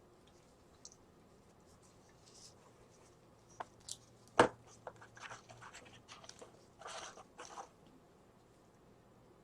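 Close handling noises of small hand work on wires: a few light clicks, one sharp click about four and a half seconds in, then a run of short scratchy noises.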